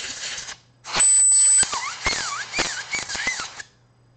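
Compressed air blasting dust out of a laptop's cooling fan: two loud hissing bursts. The second, longer burst carries a sharp high whistle near its start, then sharp clicks and wavering squeaky whistles.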